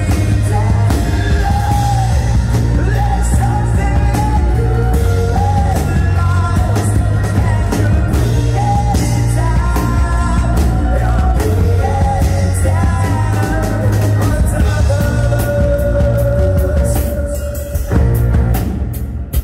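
Live rock band playing with a lead singer: acoustic guitars, cello, violin, keyboard and drums under a sung melody. Near the end the music thins for a moment, then the singer holds a long note.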